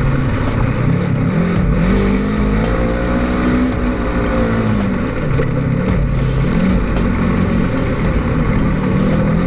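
Polaris RZR 900 side-by-side's twin-cylinder engine running, its pitch rising and falling several times as the throttle is worked.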